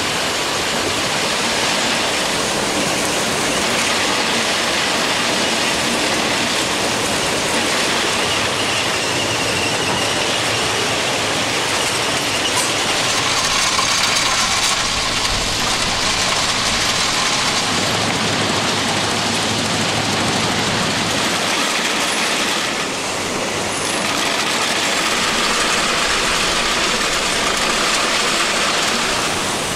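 Plasser & Theurer RU 800 S track renewal machine at work: a steady, dense mechanical din of its conveyors and ballast handling, with a faint high whine rising out of it around the middle.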